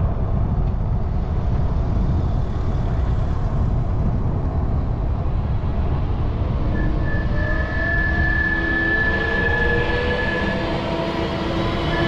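Wind rumble on the microphone of a moving bicycle. From about seven seconds in, an approaching Claas Trion 750 combine harvester can be heard: its engine note rises slowly in pitch, with a steady high whine over it for about four seconds.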